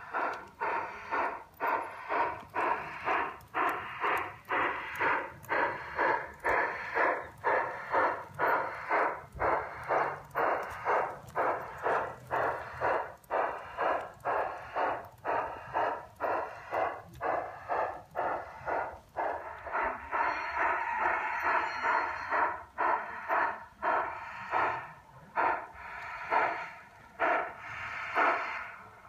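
Chuffing from a G-scale model steam locomotive's electronic sound unit, heard through its small loudspeaker: steady exhaust beats, about two a second. Past the middle the beats blur into a steadier hiss for a few seconds, then come back less evenly.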